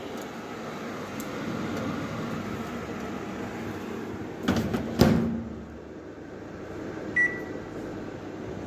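Microwave oven door shut with two knocks about five seconds in, the second a loud clunk as it latches, followed a couple of seconds later by one short high beep from the oven's keypad.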